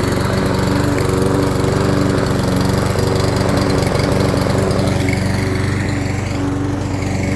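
Craftsman M260 gas walk-behind lawn mower's single-cylinder engine running steadily under load while mowing.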